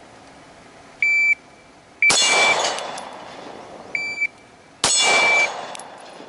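Electronic shot timer beeps, and about a second later a single shot from a 9mm Glock 17 pistol cracks, followed by a steel target ringing from the hit. This happens twice.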